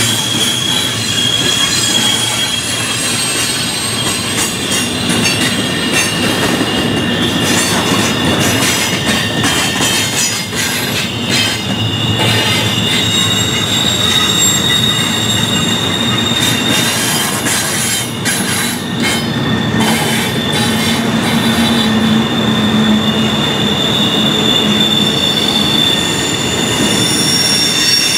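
Double-stack intermodal container train rolling past, its steel wheels squealing against the rails as the cars take the sharp curve: a steady, high-pitched squeal over the constant rumble of the passing well cars.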